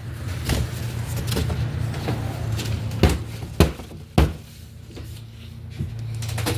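Knocks and thuds of packaging being handled and tossed out: several sharp knocks, the loudest three about three, three and a half and four seconds in, over a steady low hum.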